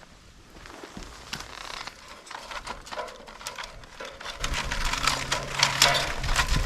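Dry bamboo and dry bamboo leaves crunching and crackling as they are handled and packed into a bundle of split bamboo. The crackling grows denser and louder about four seconds in, when a low steady hum also starts.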